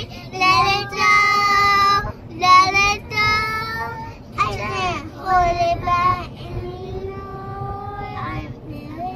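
A young child singing in high, drawn-out notes that swoop up and down, in phrases with short breaks, louder in the first half. Under it runs the low hum of the moving car.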